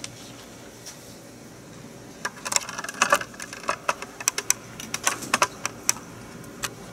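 Typing and key clicks on a laptop keyboard: a quiet start, then a quick irregular run of clicks from about two seconds in that stops shortly before the end.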